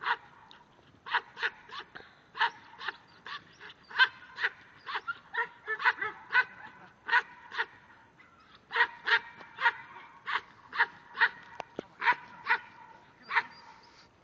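Herding dog barking repeatedly at cattle: sharp, high-pitched barks in quick runs, with a short pause a little past the middle.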